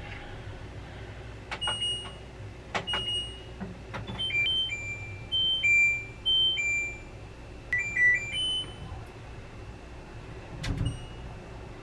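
Washing machine control panel beeping as its buttons are pressed: a click and a short electronic beep with each press, at a few different pitches, with a short run of tones in the middle. A low thump comes near the end.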